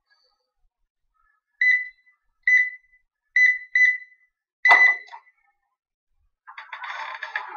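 Electronic door-access keypad beeping as a code is entered: four short beeps, one per key press. About five seconds in comes a louder fifth beep with a sharp click as the code is accepted and the keypad's light turns green. A brief burst of rustling noise follows near the end.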